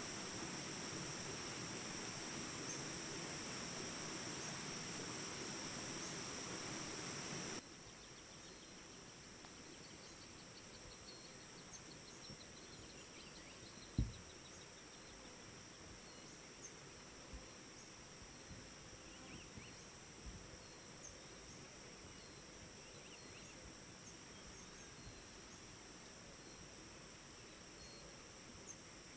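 Field ambience of a steady, high-pitched insect chorus that cuts to a quieter background about seven and a half seconds in. Faint scattered insect chirps follow, with one sharp low thud about halfway through.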